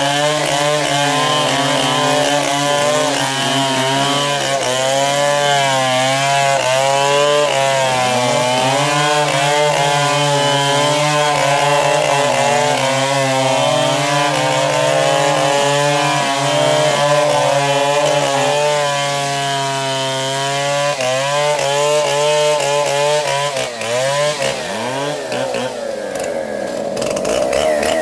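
Chainsaw running under load while cross-cutting a baobab trunk, its engine pitch wavering as the chain bites into the wood. In the last few seconds the engine note changes and swings up and down.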